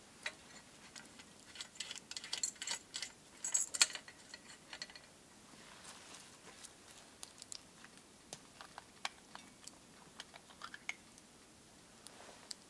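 Metal hurricane oil lantern being handled: a busy run of light metallic clicks and rattles about two to four seconds in, then sparser single clicks.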